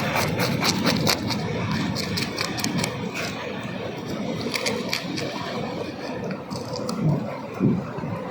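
Outdoor cooking sounds: a steady rushing noise with a quick run of clicks and taps in the first second, and a couple of knocks near the end.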